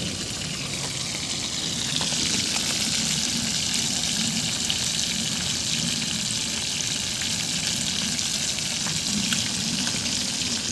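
Fish frying in oil in a pan on a portable butane stove: a steady sizzle.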